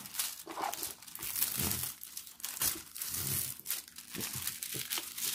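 Clear plastic protective film on a diamond-painting canvas crinkling and crackling irregularly as hands smooth it down and lift it.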